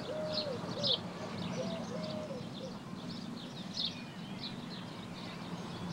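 Birdsong: small birds chirping in short high calls throughout, with a pigeon cooing in short repeated phrases during the first half, over a low steady hum.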